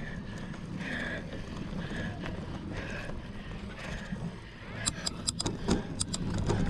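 Mountain bike ridden over rough ground: steady wind and tyre rumble on the microphone, with a faint recurring sound about once a second and a quick run of rattling clicks about five seconds in.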